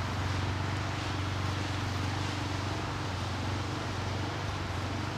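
A steady low mechanical hum, like a running motor, under an even background hiss.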